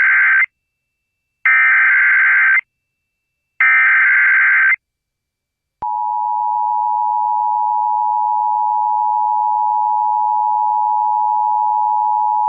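Emergency Alert System SAME header: the tail of one burst of screeching digital data, then two more bursts about a second long, a second apart. About six seconds in, the steady two-tone EAS attention signal starts and holds without a break. Together they open an emergency broadcast alert, here a tornado warning.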